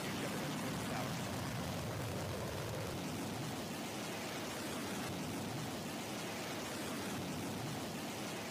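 New Shepard rocket's BE-3 engine exhaust during liftoff and climb, heard as a steady, even rushing noise with no pitch.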